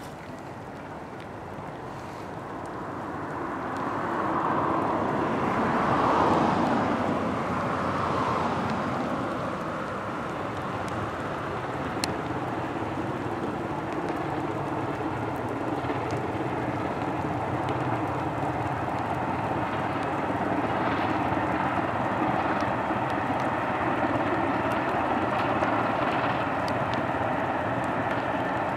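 BR Britannia class 7MT 4-6-2 steam locomotive No. 70013 working a passenger train, heard across open country as a steady exhaust rumble mixed with wind noise on the microphone. About five to seven seconds in, a brief louder swell sweeps down in pitch.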